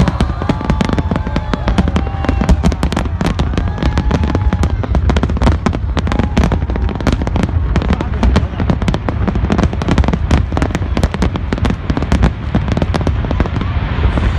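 Fireworks display: many aerial shells bursting in dense, rapid, overlapping bangs and crackles over a continuous deep rumble.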